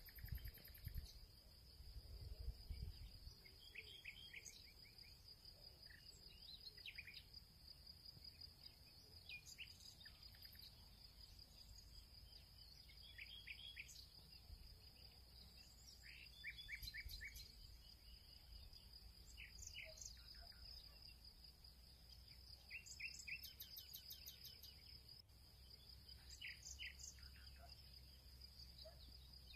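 Faint ambient sound: birds chirping now and then, a few quick notes at a time, over a steady high-pitched insect drone.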